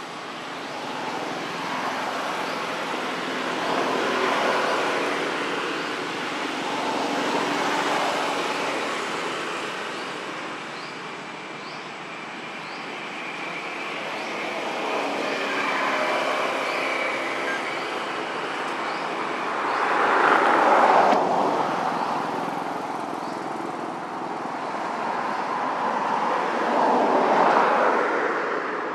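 Road traffic passing: a steady rush of vehicles that swells and fades several times, loudest about two-thirds of the way through and again near the end.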